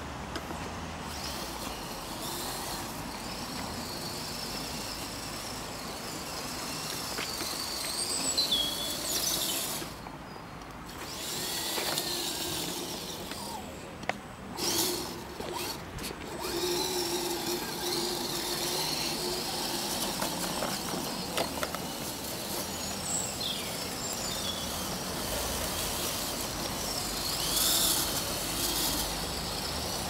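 Electric drive motor and gears of a radio-controlled 6x6 Mercedes truck whining, the pitch rising and falling as the throttle changes, with its tyres running over dirt and dry leaves.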